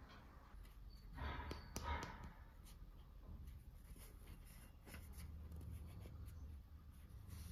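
Quiet handling sounds: scratchy rustling and scattered light clicks of small objects being moved about by hand, with a louder rustle about a second in.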